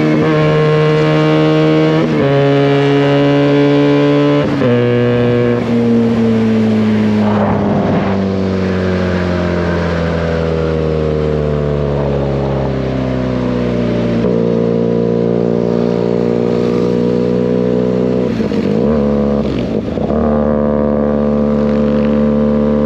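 Benelli 302S parallel-twin engine running through an SC Project aftermarket exhaust while riding. The engine note steps down twice in the first five seconds, as on upshifts, then sinks slowly for several seconds as the bike slows. It wavers briefly near the end, then settles into a steady cruise.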